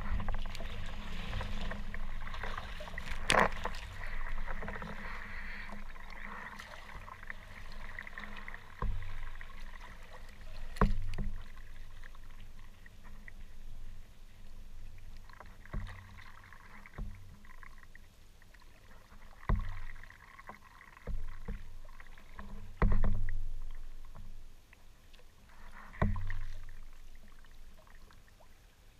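Kayak being paddled through choppy water: splashing and water washing against the hull, with several sharp knocks scattered through, the loudest about three seconds in. A low wind rumble sits on the action camera's microphone throughout.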